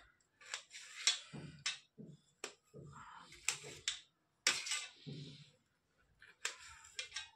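Kitchen knife slicing a tomato on a steel plate: irregular taps and scrapes of the blade against the metal, roughly one or two a second.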